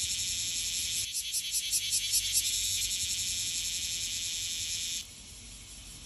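Cicada singing: a harsh, high buzz that pulses several times a second at first, then holds steady and cuts off suddenly about five seconds in. Fainter cicadas keep buzzing behind it.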